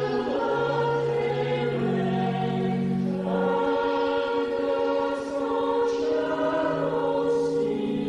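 Church choir singing a slow, sustained choral piece in held chords that change every second or two.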